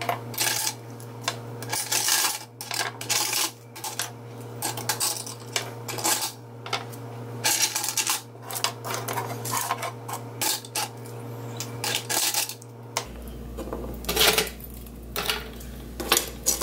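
Scallop shells clicking and clinking against one another and the baking tray as steamed scallops on the half shell are set out one by one, in irregular light clicks throughout.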